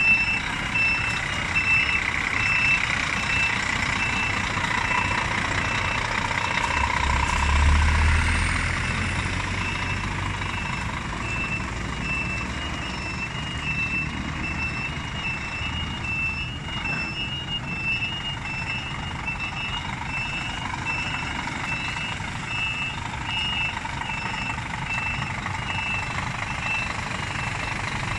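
Reversing alarm on a Scania G440 truck beeping steadily and repeatedly as the tractor unit and its low-loader trailer manoeuvre, over the low running of its six-cylinder diesel engine. The engine's rumble swells briefly about eight seconds in.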